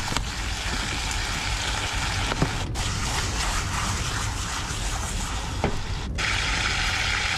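Fish sizzling in hot oil in a frying pan: a steady crackling hiss with faint pops, which grows stronger and brighter after about six seconds.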